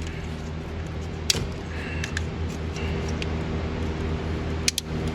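A few sharp clicks of small hand tools on an old plastic relay-box connector as a stuck pin is worked loose, one about a second in and a quick pair near the end. A steady low mechanical hum runs underneath.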